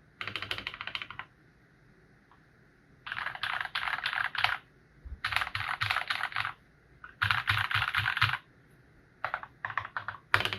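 Typing on a tenkeyless mechanical keyboard with lubed and filmed Feker Holy Panda tactile switches: four quick runs of keystrokes about a second long, with short pauses between them, then a few shorter runs and one sharp, louder keystroke near the end.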